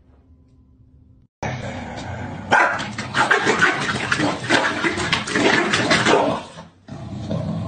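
Two corgis play-fighting, growling and barking at each other in a dense, noisy run that starts suddenly about a second and a half in and breaks off briefly near the end.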